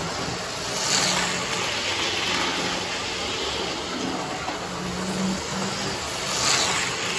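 Model diesel train running on the layout's track: a steady running noise with a low hum, swelling about a second in and again near the end.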